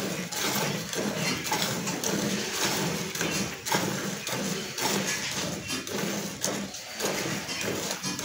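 Cow being milked by hand, milk squirting in quick rhythmic streams into a metal bucket of frothy milk.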